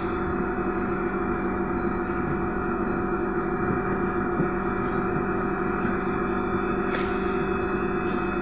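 Belkommunmash BKM-321 trolleybus standing still, its onboard electrical equipment humming steadily on several fixed tones, with a faint high whine that comes and goes. Cars pass alongside, and there is a light click about seven seconds in.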